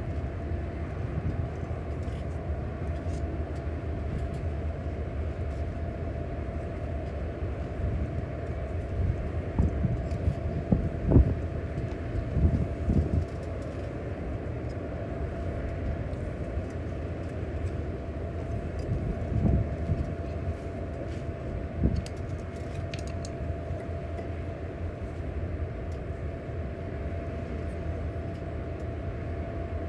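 A steady low mechanical drone with a constant hum running through it, broken by a few knocks and thumps around the middle.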